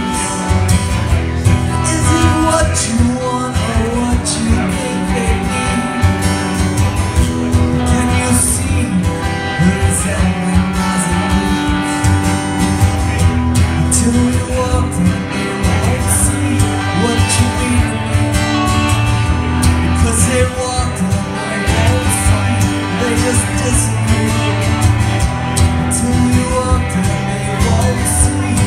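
A band's song: singing over guitar, with bass and a steady drum beat.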